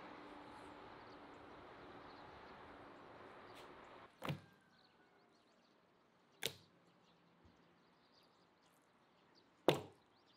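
Three sharp knocks a couple of seconds apart, the last the loudest: whole raw chickens being set down one on another in a white bowl. A steady outdoor hiss fills the first few seconds and then drops away.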